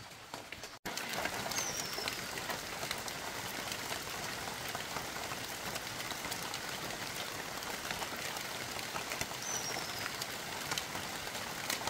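Steady rain, an even hiss dense with small pattering ticks, starting abruptly just under a second in. A short high falling chirp sounds twice over it, about two seconds in and again near the end.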